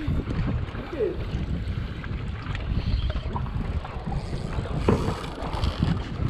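Wind rumbling on the microphone over the wash of the sea around a small boat, with a single sharp knock about five seconds in.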